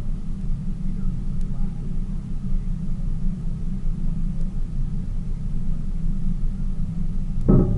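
Tour boat's engine running steadily, a continuous low rumble. A brief louder sound comes near the end.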